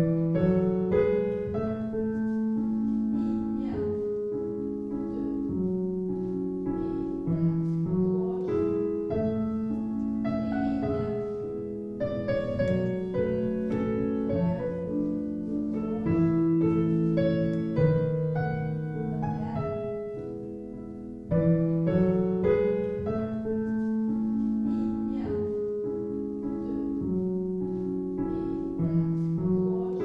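Piano music in a gentle classical style, played in even phrases; it fades briefly, then comes back louder with a new phrase about two thirds of the way through.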